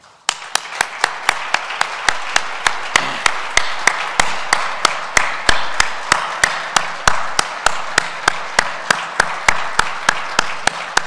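Audience applauding, starting suddenly, with one clapper close to the microphone standing out as sharp, evenly spaced claps at about three to four a second.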